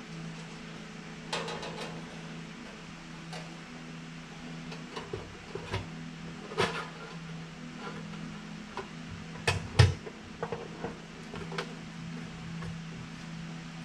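Thin sheet-metal valley pan gasket being laid onto a Buick 455 engine block by hand: scattered light taps and clatters of the metal sheet against the block, with two sharper knocks a little past halfway, over a steady low hum.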